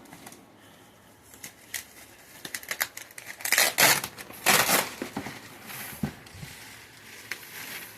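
Wrapping around a doll crinkling and rustling as it is handled and pulled at, with scattered crackles and two louder bursts about halfway through.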